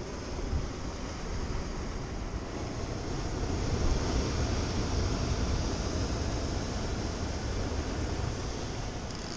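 Wind buffeting the microphone over the steady wash of sea surf breaking against rocks, swelling about four seconds in.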